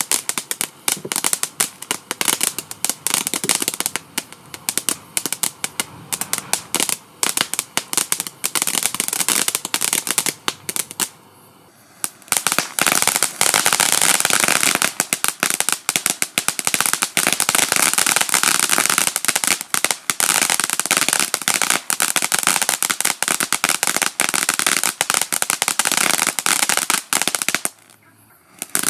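Two crackling firework fountains burning one after the other, each a dense, rapid crackle of many small pops. The first dies out about eleven seconds in; a second later the next starts, louder and denser, and stops shortly before the end.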